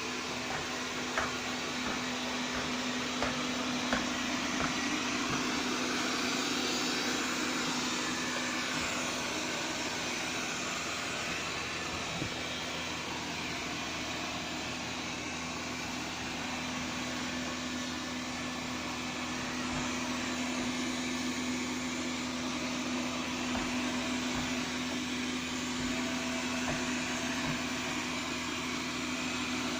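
Xiaomi Mi Robot Vacuum-Mop P running: a steady mechanical hum with a hiss, with a few light clicks in the first few seconds.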